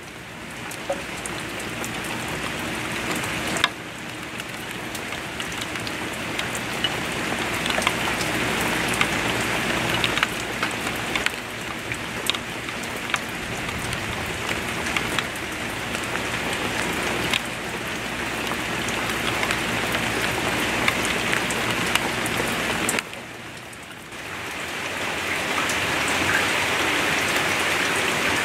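Steady heavy rain falling, a dense hiss with scattered sharp ticks of drops striking nearby surfaces. The level dips briefly twice, about 4 seconds in and about 23 seconds in, then comes back.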